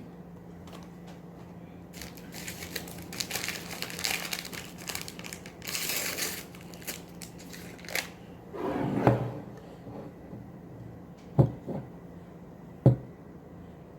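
A packet of instant banana cream pudding mix being opened: paper and plastic packaging crinkling and tearing for several seconds, then a couple of sharp knocks near the end.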